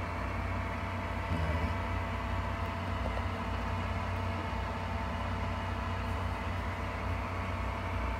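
Steady low hum of an egg incubator's fan running, with a few faint steady tones above it.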